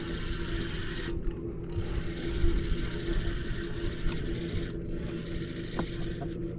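Fishing reel being cranked on a crankbait retrieve: a steady mechanical whirring that pauses briefly about a second in and again near five seconds, over a steady low hum.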